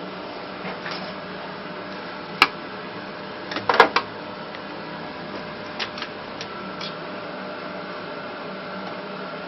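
Sharp clicks and knocks of hard parts being handled and worked apart during disassembly of a capsule coffee machine: one click about two and a half seconds in, a short cluster of knocks around four seconds in, and a few lighter clicks after. A steady hum runs underneath.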